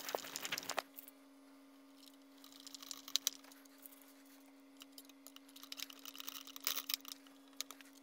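Light metallic clicking and rattling in three short bouts: screws being driven in by hand to fasten a top plate over a PC water-cooling radiator.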